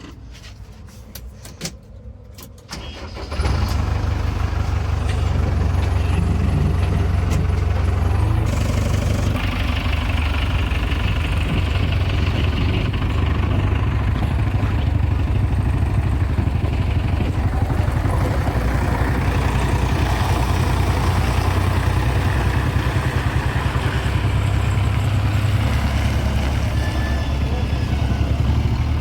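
JCB 3DX backhoe loader's diesel engine comes in loud about three seconds in and then runs steadily, after a quieter start with a few clicks.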